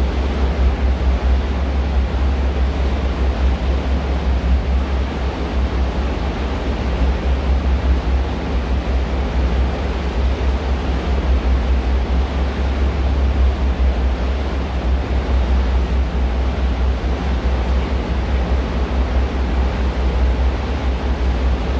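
Steady low rumble with an even rushing noise aboard a tour boat under way.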